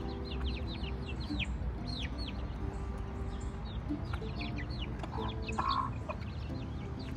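Aseel chicks peeping repeatedly in short, high, falling chirps while their hen clucks, with a louder cluck-like call about five and a half seconds in.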